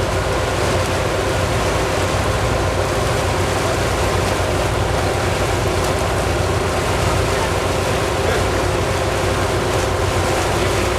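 Steady engine and road noise of a moving vehicle, with a constant low hum.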